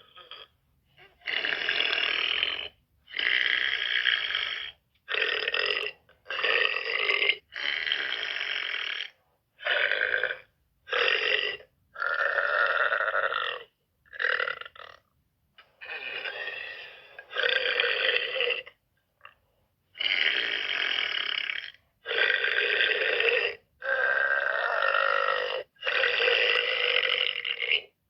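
A girl burping over and over: about fifteen long belches in a row, each lasting from half a second to nearly two seconds, with short pauses between them.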